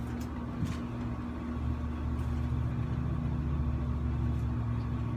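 Window air conditioner running: a steady hum over a low rumble that grows louder about a second and a half in.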